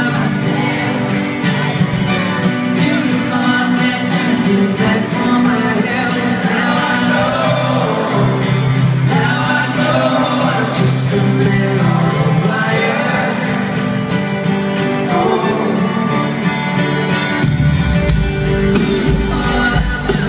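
Live band heard from the audience in a large arena: a male lead vocal sings over acoustic guitar and keyboard chords. The bass comes in near the end and fills out the low end.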